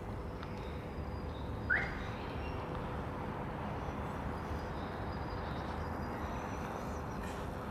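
Steady outdoor background noise, with one short rising chirp a little under two seconds in.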